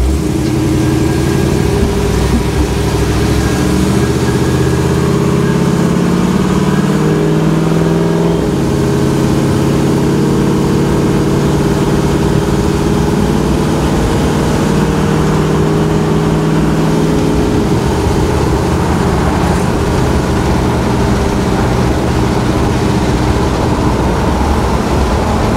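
Divco milk truck's engine heard from inside its bare metal cab while driving. The engine note climbs as the truck gathers speed, drops suddenly about eight seconds in, then runs steady, with another step change near eighteen seconds.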